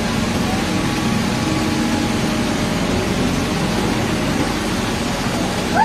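Excavator's diesel engine running steadily, under an even hiss.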